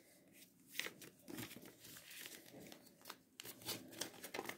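Faint rustling and crinkling of a sheet of origami paper being folded and creased by hand, with a few brief soft crackles.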